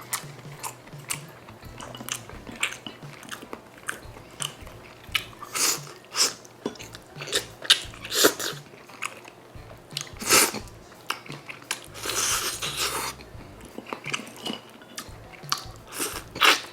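Eating sounds of gamjatang (pork backbone stew): chewing and biting with many short, crisp clicks, and a longer noisy stretch about twelve seconds in.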